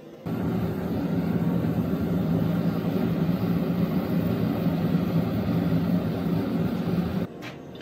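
Gas forge burner running with a steady, loud rush and a low hum; it cuts off suddenly near the end.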